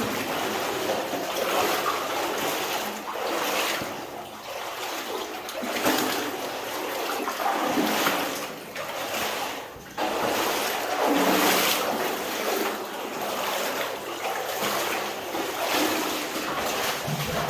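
Water sloshing and splashing as people wade through a flooded mine tunnel, swelling every couple of seconds with each stride.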